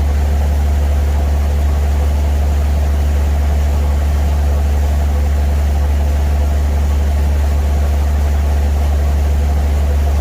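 A loud, steady low engine drone with an unchanging hum, like an engine idling.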